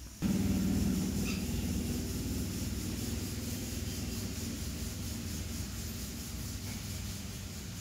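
A low rumbling noise that starts suddenly just after the start and slowly fades, with a brief faint chirp from the rose-ringed parakeet about a second in.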